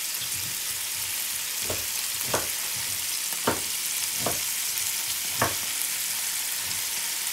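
Shrimp sizzling steadily as they fry in oil in a nonstick pan, stirred with a wooden spatula. About five short knocks of the spatula against the pan come in the middle.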